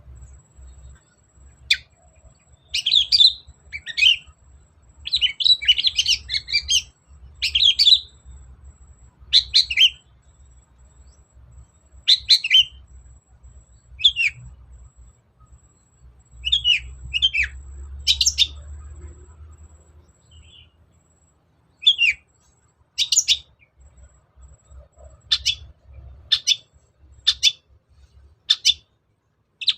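Long-tailed shrike (cendet) singing in short, sharp, scratchy chattering phrases, dense at first and then spaced out with pauses, over a faint low rumble.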